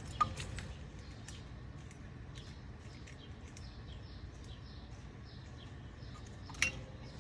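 Two sharp metal clinks, one just after the start and one near the end, as the caliper piston tool is handled against the brake caliper. Faint bird chirps and a low steady hum sit behind them.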